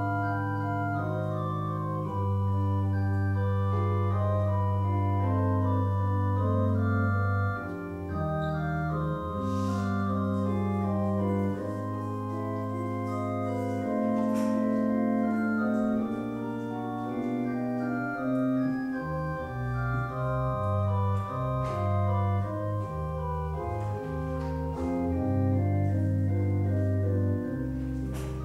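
Church organ playing a slow piece in sustained chords, the harmony shifting every second or two over long-held low bass notes.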